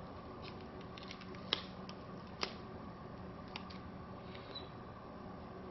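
Faint handling clicks and rustles of a rolled, taped sheet of plastic lightsaber blade film turned in the hands, with two sharper clicks about a second apart near the middle, over a steady low hum.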